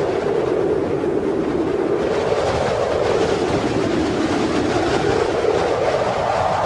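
Wind blowing steadily: a hollow, noisy rush whose pitch sinks slowly, then rises again near the end.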